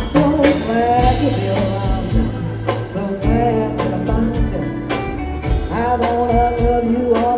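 Live blues band playing an instrumental break: a steady drum beat and bass under a lead melody with bending notes.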